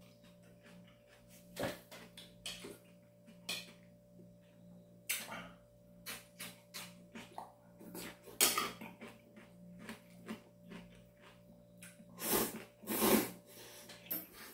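Close-up eating sounds of a person having ramen noodles: wet chewing, small mouth and chopstick clicks, and several longer slurps of noodles and broth, the loudest in the second half. A faint steady hum runs underneath.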